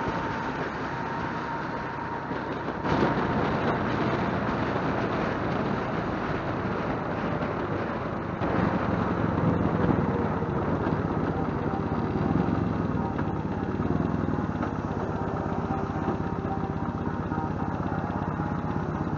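Motorcycle engine running with road and wind rush, heard from the bike as it rides up to a red light and slows. It gets suddenly louder about three seconds in and again about eight seconds in.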